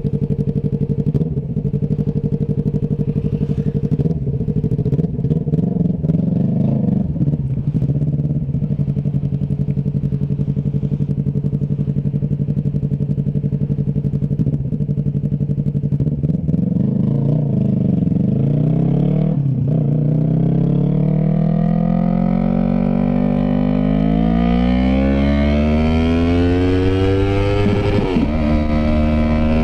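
Yamaha MT-03's parallel-twin engine running through a straight pipe with no muffler: it idles steadily for about fifteen seconds, then revs as the bike pulls away. The pitch climbs and drops back twice as it shifts up through the gears.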